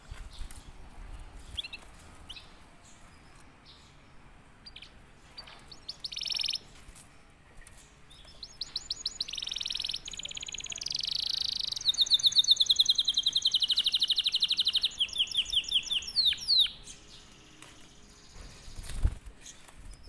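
Silver canary in strong breeding condition singing: a few scattered chirps, then from about eight seconds in a song of fast rolling trills, loudest in the middle, ending in a few quick falling notes. A single low thump near the end.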